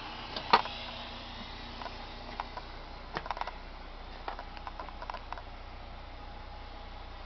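Scattered small clicks and knocks from someone moving through a coach's entry steps and driver's area, with one sharp loud click about half a second in, over a faint steady hum.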